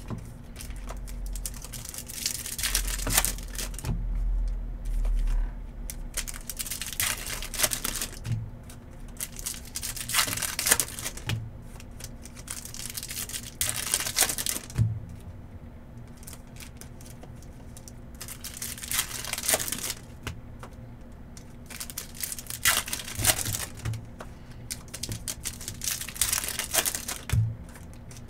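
Trading-card pack wrappers from 2023 Topps Cosmic Chrome being torn open and crinkled by hand. The crackling comes in irregular clusters with short quieter pauses between packs.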